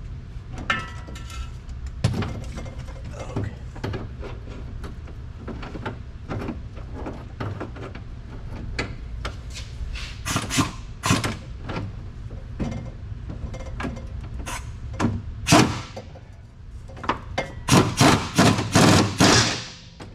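Ratchet wrench being worked back and forth on a car's rear bolts, clicking in short bursts, mixed with metallic knocks of the socket and tools. The strokes come thicker and louder near the end, in a quick run of about three a second.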